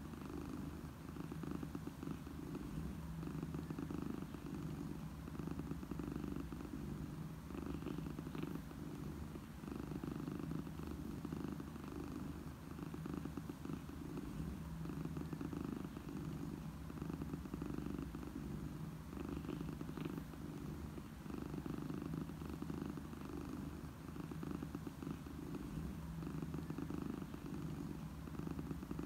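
A cat purring steadily and close up, the purr swelling and easing in a slow rhythm with each breath in and out.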